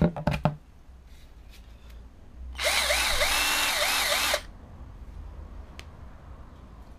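A Raitool 12 V cordless drill, chuck empty, test-run for about two seconds. Its motor whine rises and falls in pitch several times before it stops abruptly. A couple of sharp handling knocks come first.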